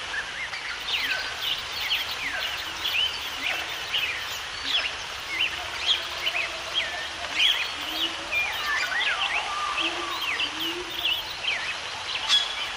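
A chorus of many birds chirping at once, with dense short calls sweeping up and down in pitch, over a steady background hiss.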